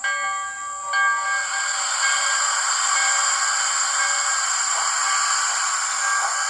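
ESU LokSound sound decoder in an On30 model steam locomotive, playing through its small onboard speaker: a short steam whistle chord at the start and again about a second in, then a steady steam hiss.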